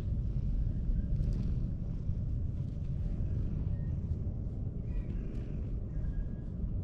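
Low, steady rumble of wind buffeting the microphone.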